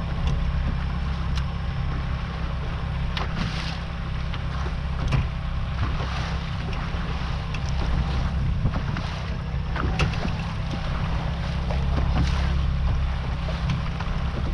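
Boat motor running steadily, a low hum under wind on the microphone, with scattered light clicks.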